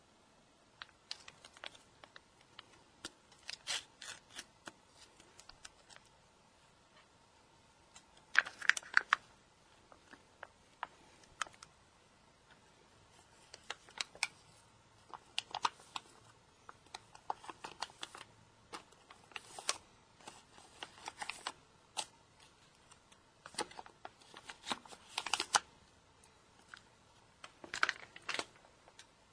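Plastic cat-food pouch being handled, opened and its flakes scraped out with a spoon onto a plate: irregular crinkles, rustles and small clicks, the loudest cluster about eight and a half seconds in.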